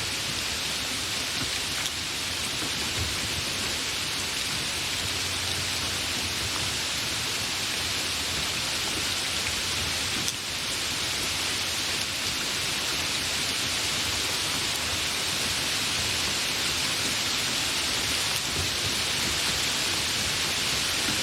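Steady, fairly heavy rain falling: an even hiss of countless drops that grows slightly louder toward the end.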